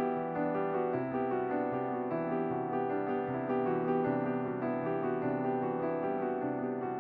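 Background music: a gentle piano (electric piano) melody with chords and a bass line.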